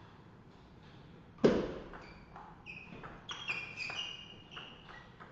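Table tennis rally: a loud thud about a second and a half in, then a run of light ball clicks and several short high squeaks of shoes on the sports-hall floor.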